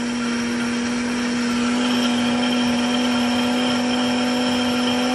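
Countertop blender motor running at a steady pitch, blending a thick green vegetable purée with hot water.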